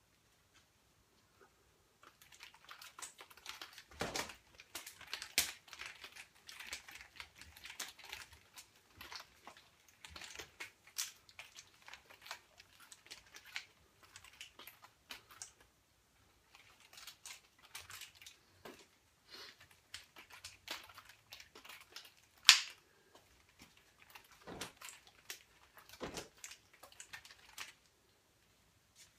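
Butterfly knife (balisong) being flipped by hand, its metal handles and blade clicking and clacking in quick, irregular runs. There is a short pause about halfway through and one sharp, louder clack later on.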